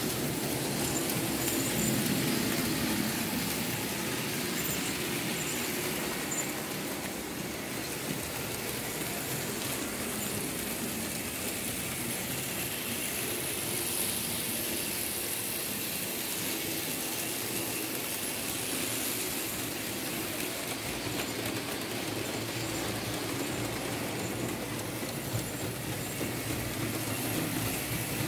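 Märklin H0 model BR 23 steam locomotive from 1962 running along the layout track with a train of open freight cars: the steady running noise of its electric motor and of the wheels rolling on the metal rails.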